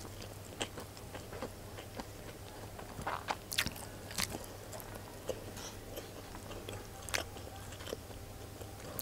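Close-miked chewing of fried rice, with soft mouth clicks and a few sharper clicks and scrapes of a wooden spoon on the plate, the loudest a little past the middle.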